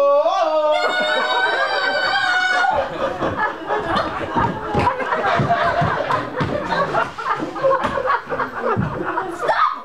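A long, high-pitched held cry for about the first three seconds, then a theatre audience laughing together for several seconds.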